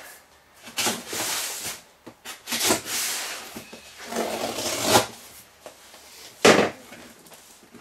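A cardboard shipping box being cut and pulled open: a blade slitting the packing tape and the cardboard flaps scraping and rasping in several short bursts. The loudest, a sharp scrape of cardboard, comes near the end.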